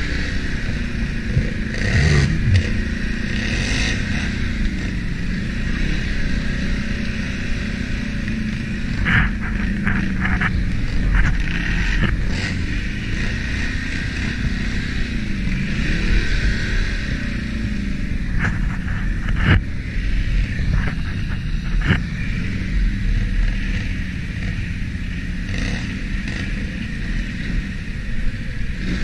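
ATV engine running steadily on a trail ride, its pitch rising and falling a little with the throttle, with clusters of sharp knocks and rattles from the machine over rough ground about a third and about two thirds of the way through.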